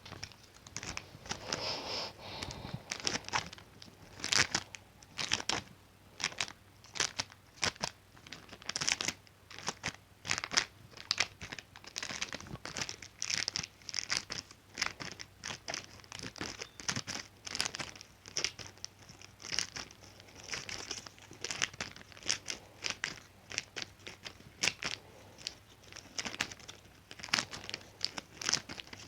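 Scissors snipping repeatedly through material: a long run of short, sharp cuts, irregular and about one to two a second.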